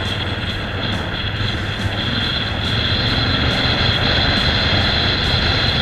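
Adventure motorcycle engine running at a steady cruising speed, with tyre and wind noise on a dirt track, getting a little louder about two seconds in.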